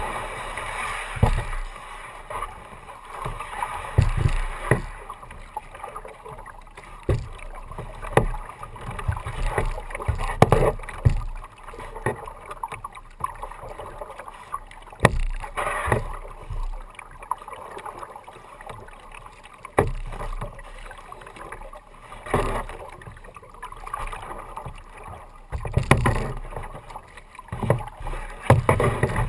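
Kayak paddle strokes, the double blade dipping and splashing into the water every second or two, heard close up from on the plastic kayak.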